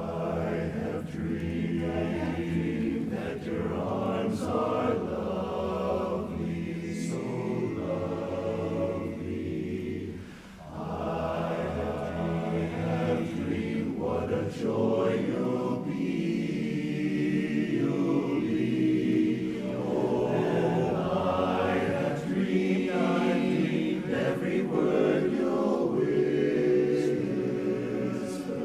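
Barbershop chorus singing a cappella in close four-part harmony, coming in suddenly together and holding full, sustained chords, with a brief break for breath about ten seconds in.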